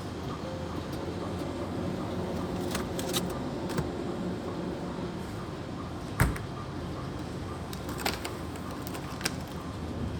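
A few light clicks and knocks, with one louder thump about six seconds in, over a steady low hum.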